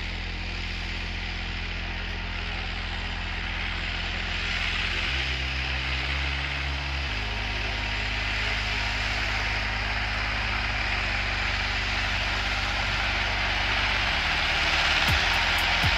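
Massey Ferguson 385's four-cylinder diesel engine running under load while pulling a chisel plow, growing steadily louder as the tractor approaches. Low, steady music notes that change every few seconds sit underneath.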